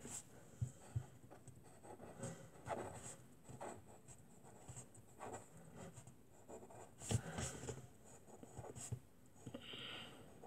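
Pen scratching on paper as numbers are written out by hand, in faint, irregular short strokes, with one louder knock about seven seconds in.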